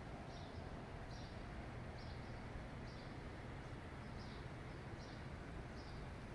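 A bird chirping over and over, short high chirps about once or twice a second, some in quick pairs, over a steady low city hum.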